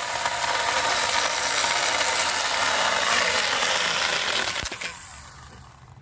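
Stihl GTA26 battery-powered mini chainsaw running and cutting into a wood limb. Its chain runs steadily, then stops about four and a half seconds in, followed by a single click.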